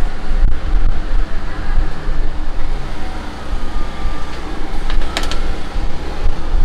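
Kitchen background noise: a steady low rumble, with a couple of light clicks about five seconds in.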